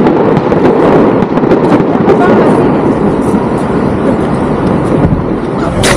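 Heavy wind buffeting on the camera microphone, a loud, rough rumble broken by scattered clicks and knocks, with a sharper knock near the end.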